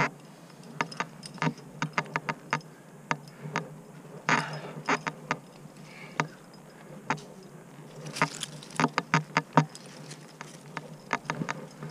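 A rock climber's moves: scattered sharp clicks and taps of carabiners and quickdraws clinking on the harness and of hands and shoes on the rock, with a short scraping rustle about four seconds in and another about eight seconds in.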